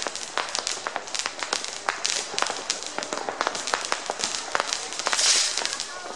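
Distant fireworks and firecrackers going off in a rapid, irregular string of bangs and pops, with a short, louder hiss about five seconds in.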